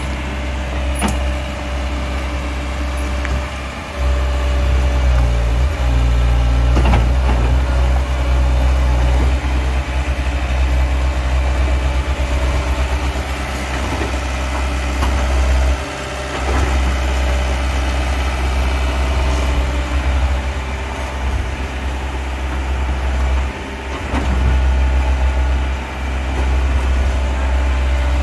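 Amphibious excavator's diesel engine running with a deep, steady hum. Its loudness swells and drops back several times as the machine works its pontoon tracks and boom.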